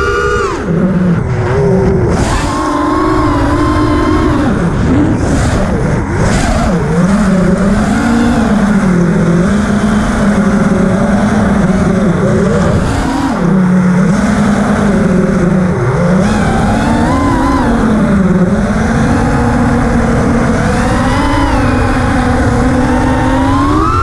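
FPV racing quadcopter's brushless motors and propellers whining, the pitch rising and falling constantly with the throttle, over a steady rush of air noise.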